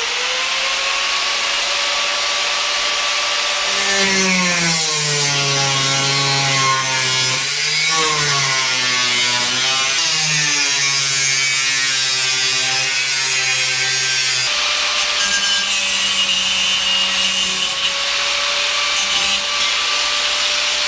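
Angle grinder spinning up and cutting through a sheet-steel computer case side panel. A steady high whine, whose pitch wavers and drops from about 4 to 14 seconds in while the disc bites into the steel, then runs steadier near the end.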